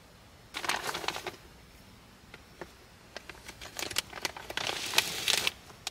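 Thin clear plastic crinkling as it is handled, first in a short spell about half a second in, then in dense crackles from about three seconds in to near the end.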